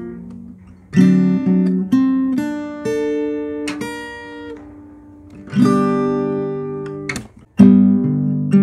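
Background music: acoustic guitar chords, each struck suddenly and left to ring and fade, a new chord coming every second or few seconds.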